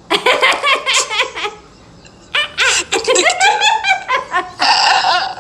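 Loud, high-pitched laughter in two fits, the second one longer.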